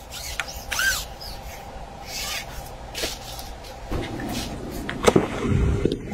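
Dry reed stems rustling and scraping as they are pushed through and brushed by a fishing pole, in short scratchy strokes. From about four seconds in a heavier, lower rustling rumble builds.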